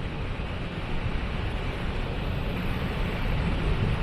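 Waterfall: water pouring steadily, an even rushing noise with most of its weight in a deep low rumble.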